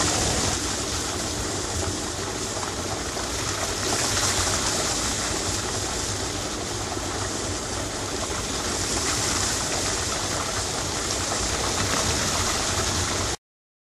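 Van Dijke waste water separation screen running: processing water rushing through the wet inclined belt screen as a steady hiss, over the low hum of its drive motor. The sound cuts off suddenly near the end.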